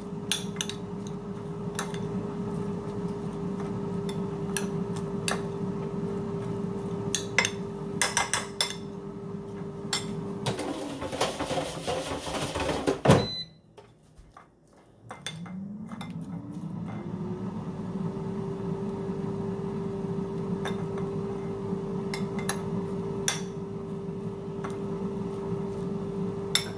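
Metal spoon stirring coleslaw in a glass bowl, scraping through the dressed shredded cabbage and clinking now and then against the glass. Under it a steady mechanical hum runs. The hum gives way to a couple of seconds of rushing noise, cuts off with a click about 13 seconds in, and spins back up with a rising whine a few seconds later.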